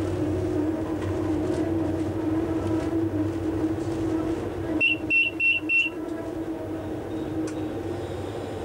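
Diesel shunting locomotive's engine running steadily, heard from inside the cab as a low, even drone. About five seconds in, four quick high-pitched beeps sound in a row.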